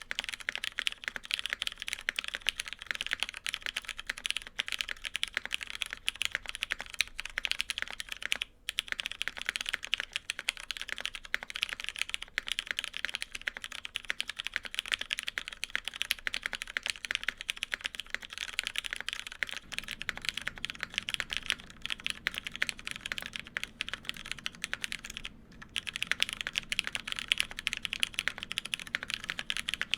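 Fast, continuous typing on a gasket-mounted mechanical keyboard with lubed Hyperglide Cherry MX Brown tactile switches on 62g long springs, a full aluminium plate and GMK keycaps: a dense, even clatter of keystrokes with two short pauses.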